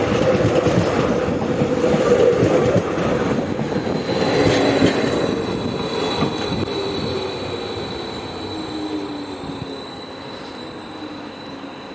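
Train moving on the station tracks, its wheels running on the rails with squealing and a thin, high, steady whine. The sound slowly fades away.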